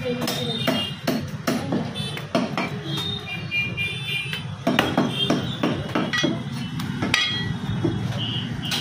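Meat cleavers chopping goat meat on wooden log chopping blocks: a run of irregular heavy knocks, several a second at times.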